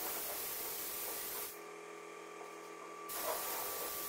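Compressed-air spray gun hissing as it sprays high-build primer onto a car door. The trigger is let go about a second and a half in, the hiss stops for about a second and a half, then spraying resumes.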